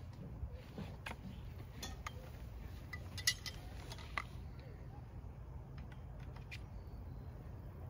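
Greenhouse frame parts clicking and tapping together as they are handled and sorted: a scattering of sharp clicks, the loudest a little over three seconds in, over a steady low rumble.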